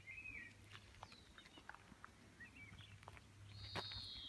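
Faint songbird chirps, a few short twittering notes and then one longer falling whistle near the end, over a few light clicks and a weak low hum.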